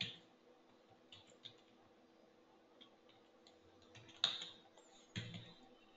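Sparse, faint computer keyboard keystrokes: a handful of scattered clicks, with a louder keystroke-like burst about four seconds in.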